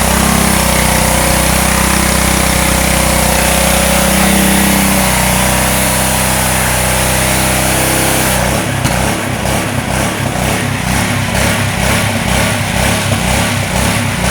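Petrol pressure washer's small engine running steadily under a high spray hiss; about eight seconds in the hiss stops and the engine runs on unevenly, pulsing.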